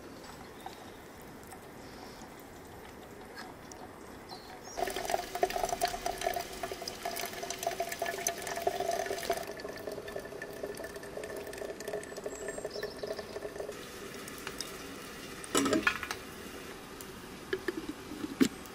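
Water running from a brass samovar's tap into a glass teapot, a steady stream that starts about five seconds in and stops about nine seconds later. A few sharp clinks follow near the end as the teapot's lid is handled.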